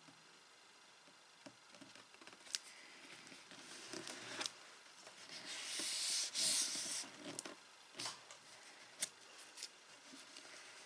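Paper and cardstock being handled and pressed by hand: scattered light taps and clicks, with a longer, louder rubbing rustle about a second and a half long around the middle.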